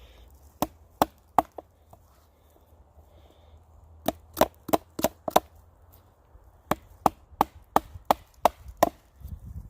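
Sharp chopping blows on wood, about three a second, in three runs of four, five and seven strikes with pauses between.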